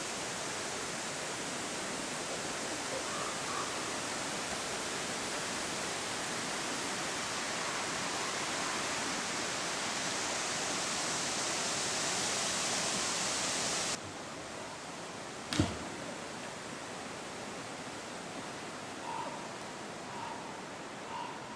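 Steady outdoor hiss of forest ambience that drops away abruptly about two-thirds of the way through, followed a moment later by a single sharp knock, the loudest sound; after it a quieter hiss with a few faint short chirps.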